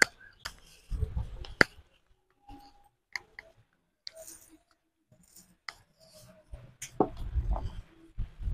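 Shallots being peeled and cut by hand against a fixed upright blade (aruvamanai): irregular small clicks and snips of the blade through the shallots, with light handling knocks. A few low rumbles come about a second in and again near the end.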